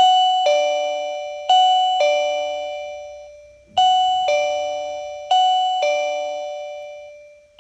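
DJS SOS01 SOS alarm receiver sounding its ding-dong chime ringtone after the call button is pressed: a high note then a lower one, repeated four times, with each pair ringing out before the next.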